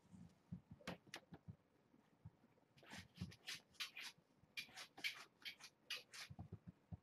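Faint scratching and scuffling of kittens' claws and paws on a thick towel as they scramble and pounce at a hand, in many short bursts with soft low thumps, busiest from about three seconds in.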